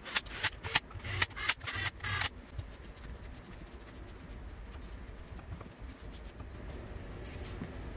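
A quick, irregular run of sharp metallic clicks and clinks as small steel parts such as bolts and sockets are handled, stopping about two seconds in. Faint rubbing follows as a shop towel wipes the aluminium engine case.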